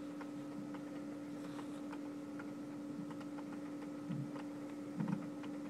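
Hail and rain ticking irregularly against a window pane, about three sharp taps a second, with two duller, louder knocks about four and five seconds in. A steady low hum runs underneath.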